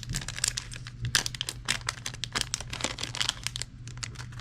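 Plastic packaging crinkling and crackling in the hands as a new part is unwrapped, an irregular run of crackles throughout.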